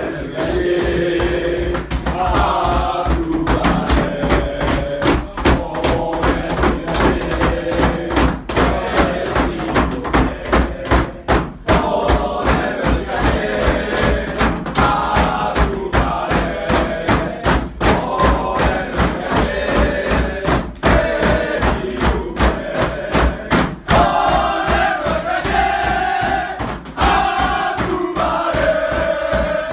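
A group of men singing a victory chant together while beating a fast, steady rhythm with their hands on the floor.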